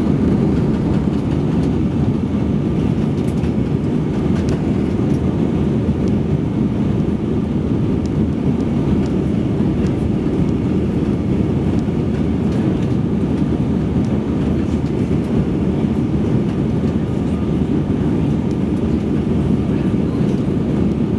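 Steady cabin noise of an Airbus A319 airliner in flight, heard at a window seat over the wing: a deep, even rumble of the jet engines and rushing air that holds level throughout.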